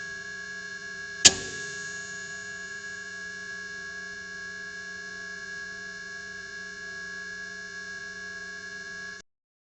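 Failing fluorescent tube: a sharp click about a second in, with a steady hum of several tones and a high whine on either side of it. The hum cuts off suddenly near the end.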